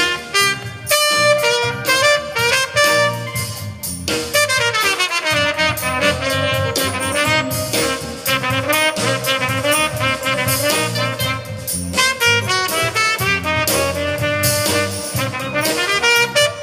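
Youth jazz big band playing a jazz tune, with saxophones, trumpets and trombones over a rhythm section.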